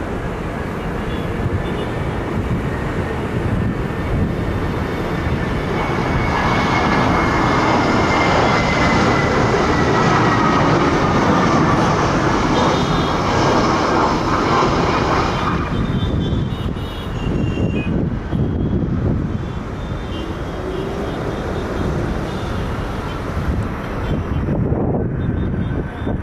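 Airbus A320's jet engines on final approach: a steady noise that swells as the airliner passes close, with a whine falling in pitch, then eases as it lands and rolls out on the runway.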